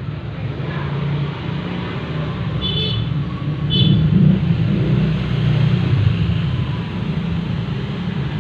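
Road traffic passing close by: a low engine rumble that swells to its loudest about four seconds in and then eases off. Two short high chirps sound about a second apart near the middle.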